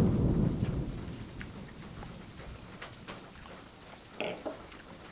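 Close, muffled chewing of a bite of leipäjuusto (Finnish bread cheese), loud at first and fading over about two seconds, picked up by a clip-on shirt microphone. About four seconds in, a brief knock as the glass coffee cup and fork are set down.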